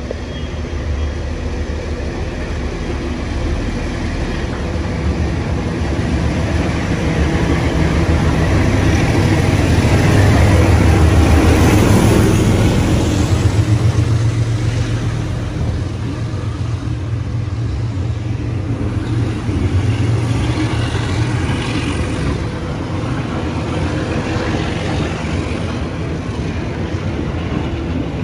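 Waratah electric multiple-unit train running into the platform: the low hum of its motors and the wheel noise grow to their loudest about halfway through, then settle into a steadier hum.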